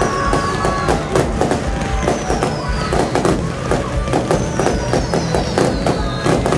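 Fireworks display with continuous rapid crackling and bangs from aerial shells and ground-launched fountains and comets.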